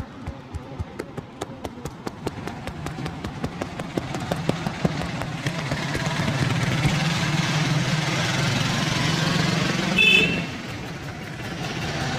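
Rapid rhythmic slapping of a barber's hands in a massage, about four to five strikes a second, fading under street traffic as a vehicle engine grows louder from about four seconds in. A short horn blast sounds a little after ten seconds and is the loudest moment.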